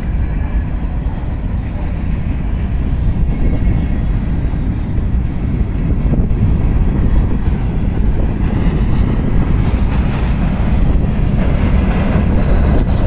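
Loaded steel gondola cars of a long freight train rolling slowly past: a steady rumble of wheels on rail, with wind buffeting the microphone.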